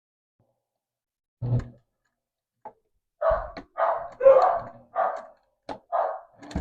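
A dog barking about six times in a quick, irregular run, after a single short low sound a little earlier.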